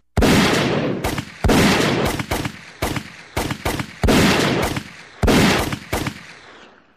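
A volley of gunshot sound effects: four loud shots, each trailing off in a long fading echo, with smaller, quicker shots between them, dying away near the end.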